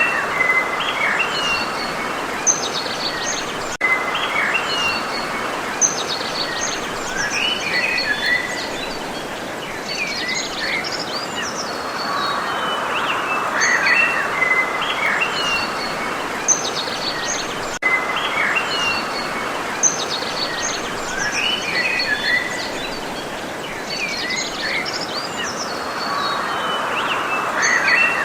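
A songbird singing a varied song of quick notes and trills, repeated in bouts every several seconds over a steady background hiss of outdoor noise.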